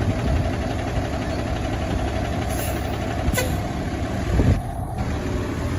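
Fire engine's engine running with a steady low rumble and a hiss above it, with a brief louder low thump about four and a half seconds in.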